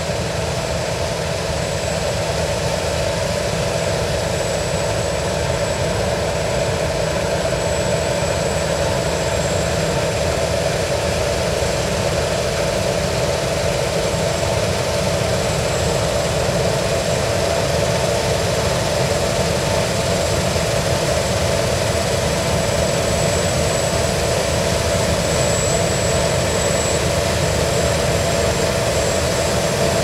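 Claas Lexion combine harvester running steadily while cutting and threshing rice, its engine and machinery making a continuous mechanical noise with a faint high whine. It grows slowly louder as the machine comes closer.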